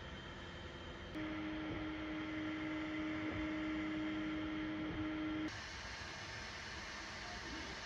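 Small fan of a 3D-printed air purifier running with a steady airy hiss. A steady hum joins it from about a second in, and the sound drops back suddenly about five and a half seconds in.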